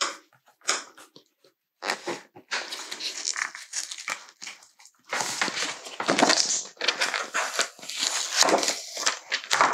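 Foil iron-on and its plastic carrier sheet crinkling and crackling as the excess is pulled away and crumpled, then as the sheet is peeled off a sticky cutting mat. Scattered short scratches at first, turning into dense, continuous crinkling about five seconds in.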